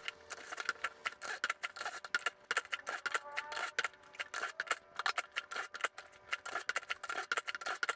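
Wooden boards being set into and clamped in a benchtop pocket-hole jig: a quick, irregular run of small clicks, taps and knocks of wood against the jig's plastic and metal.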